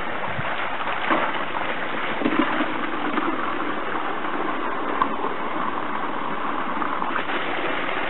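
Water gushing steadily from the open end of a plastic ducting pipe, splashing onto the stream bed and into a plastic bucket as it fills.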